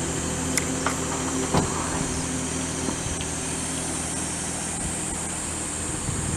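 Steady low engine hum, with an even, high insect drone above it. A few light knocks come in the first two seconds.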